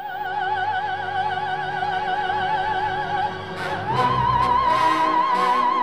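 Operatic singing as background music: one long note held with wide vibrato, then a slide up to a higher note, also held with vibrato, about four seconds in, over a quiet accompaniment.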